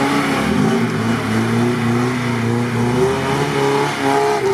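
Off-road 4x4 engine revving hard, its pitch wavering and gliding up and down.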